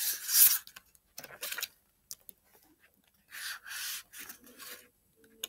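Paper pages of a hardback picture book being turned and brushed by hand: a few soft papery swishes, one right at the start, another about a second later and a longer one past the middle.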